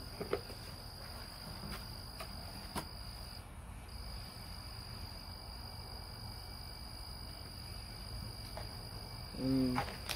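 A cricket trilling in one steady high tone, breaking off briefly about three and a half seconds in, with a few faint clicks.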